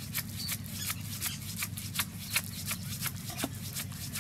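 Curved knife blade cutting and scraping the fibrous husk off a palmyra palm fruit in quick, irregular strokes, about three a second. A steady low hum sits underneath.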